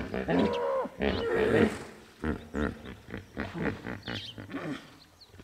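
Hippopotamus calling from the river: a loud drawn-out call followed by a series of shorter grunting honks that fade away.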